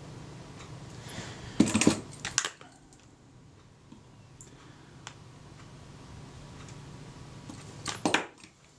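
Small hard knocks and clicks of a Kodak Retina IIIc camera being handled on a rubber work mat: a cluster of rattling knocks about a second and a half in, a few faint ticks, and another short cluster near the end. A low hum in the background stops after the first cluster.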